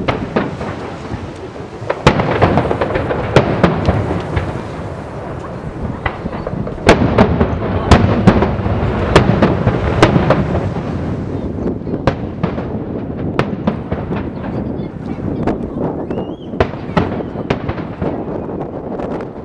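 Fireworks display: a continuous rumble of shell bursts with many sharp cracks on top, heaviest about two seconds in and again around the middle, then easing off toward the end.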